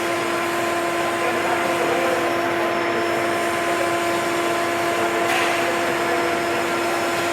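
A 60-inch tube axial fan running steadily: an even rush of moving air with a constant, steady-pitched hum and whine over it.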